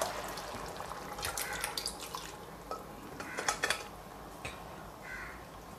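Cooked mutton and its broth poured from a pressure cooker pot into a metal pan of curry: a soft pour and dripping liquid, with several light taps of metal pots.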